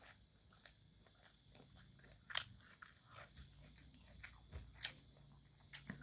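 Faint chewing of fried pork: scattered soft clicks and mouth smacks, the loudest about two and a half seconds in.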